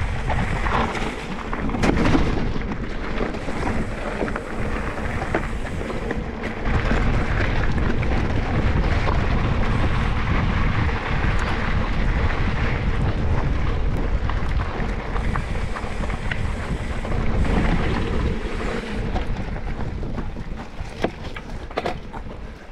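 Mountain bike being ridden on a rough dirt trail: wind rumbling on the camera microphone, with tyre noise and many small clicks and rattles from the bike.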